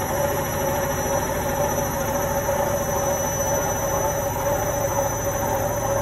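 Indesit front-loading washing machine on its spin cycle: the drum spinning fast with a steady motor whine over a low rumble.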